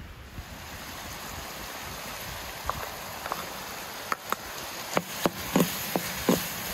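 Minced meat simmering in a large metal pan with a steady hiss, while a long metal spoon knocks and scrapes against the pan, stirring in the garlic: about ten sharp clicks, most of them from about four seconds in.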